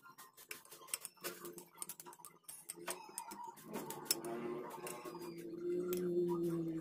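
Metal fork and spoon clicking and scraping against a ceramic plate while tossing instant noodles: a run of quick, irregular light clicks.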